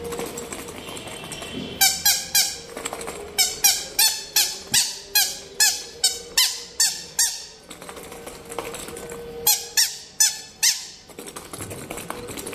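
A squeaky toy squeezed over and over in quick runs, about three squeaks a second, each a short, high squeak falling in pitch; it stops for a couple of seconds, then gives a shorter run of four or five.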